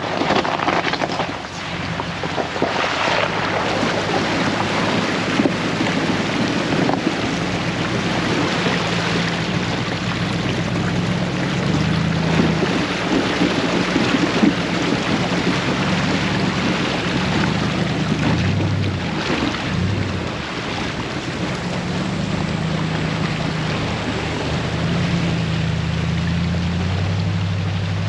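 Vehicle engine running steadily under a steady rush of road, wind and rain noise while driving, its pitch shifting a few times.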